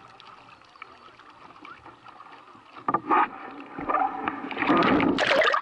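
Water lapping and splashing around a windsurf board and its sail, heard from a camera on the rig. Quiet at first, then a few knocks about three seconds in and louder splashing near the end, which cuts off suddenly.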